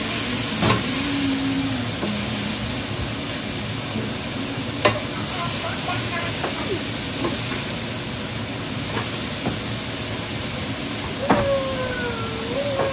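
Food sizzling in a pan, a steady hiss, with a few sharp knocks.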